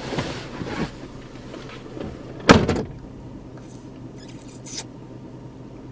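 Steady low hum inside a car cabin, with rustling at first and one sharp knock about two and a half seconds in, followed by brief rustling.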